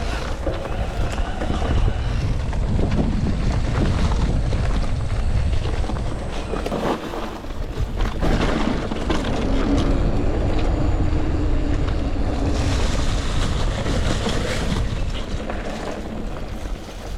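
Wind buffeting the microphone over the tyre roll and frame rattle of an electric mountain bike being ridden on a dirt trail. There are scattered knocks from the bike over rough ground, and a faint steady hum comes in about ten seconds in.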